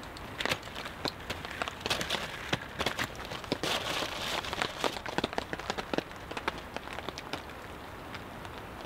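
Rain falling on a tarp overhead: a steady hiss with many separate drop taps, heaviest through the middle few seconds.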